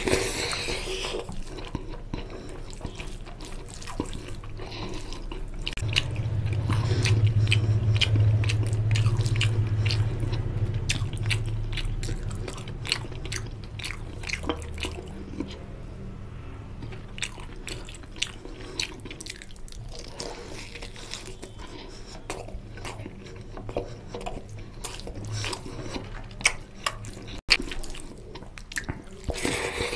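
Close-miked eating by hand: fingers squishing rice into oily mutton curry, and chewing with many small wet clicks and smacks. A low rumble is strongest from about six to twelve seconds in.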